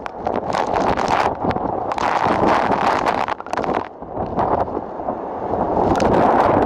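Tropical cyclone wind gusting across a sailboat's deck and rigging and buffeting the microphone. It eases somewhat about four seconds in and picks up again near the end.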